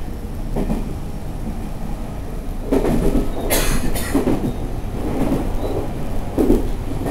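Running noise of a JR Central 313 series 2600 subseries electric multiple unit heard from on board: a steady low rumble with several irregular thumps of the wheels over rail joints, and a brief hiss about three and a half seconds in.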